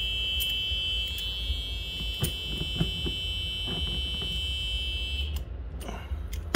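Club Car DS golf cart's reverse warning buzzer sounding a steady high tone because the cart is in reverse. It cuts off suddenly about five seconds in as the forward/reverse selector is turned out of reverse with locking pliers, and a few light clicks come from the pliers on the selector.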